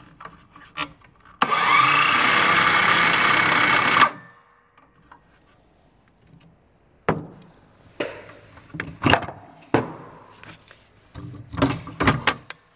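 DeWalt 18-volt cordless 6½-inch circular saw run with no load for about two and a half seconds: the motor spins up with a rising whine, runs steadily, then stops abruptly. Later come a string of clicks and knocks as the saw is handled and its battery pack is taken off.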